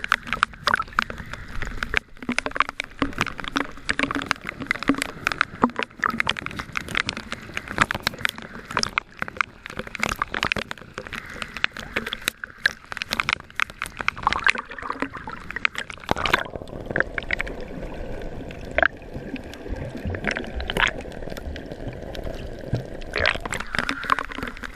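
Sea water sloshing and splashing around the microphone in choppy water, a dense run of irregular small slaps and gurgles. From about two-thirds of the way in, for several seconds, it turns to a denser, lower wash before the slaps return.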